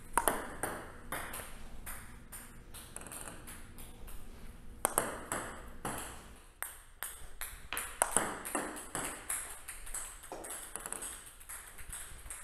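Plastic table tennis ball being served again and again in topspin pendulum serves: sharp clicks as the rubber-faced paddle brushes the ball and as it bounces on the tabletop, coming in irregular clusters.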